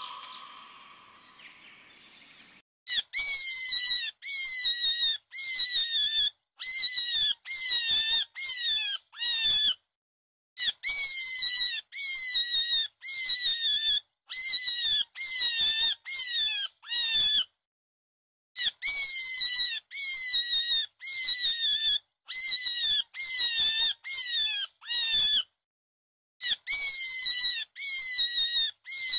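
Short, high-pitched animal squeals repeated about twice a second in runs of several calls, each call dipping slightly in pitch. The runs are broken by brief stretches of dead silence. A softer, fading sound fills the first couple of seconds before the squeals begin.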